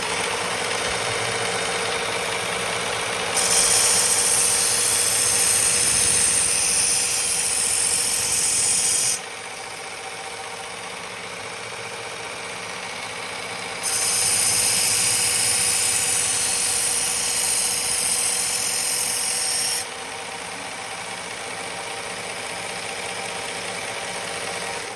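A powered knife-sharpening machine runs with a steady hum. The edge of a Miyabi chef's knife is pressed against the abrasive in two grinding passes of about six seconds each, heard as loud high-pitched hissing over the motor. These are the passes made to raise a burr along the edge.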